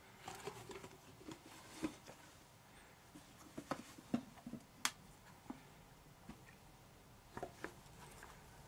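Hands handling a silicone mask close to the microphone: scattered soft taps and sharp little clicks, irregular, with a few louder ones about two, four and five seconds in and near the end.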